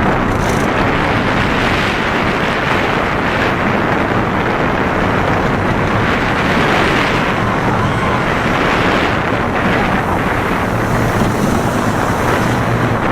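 Loud, steady wind rushing over the microphone of a rider on the Cheetah Hunt roller coaster, mixed with the rumble of the moving train.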